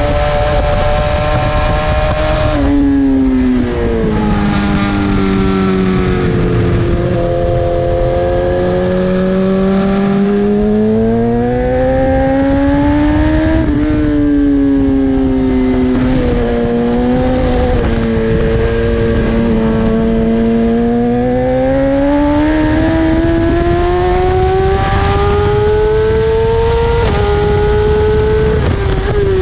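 BMW S1000RR's inline-four engine at high revs on a race track, its pitch dropping sharply on closing the throttle and downshifting, then climbing again as it accelerates out of the corners, several times over. A steady rush of wind noise runs underneath.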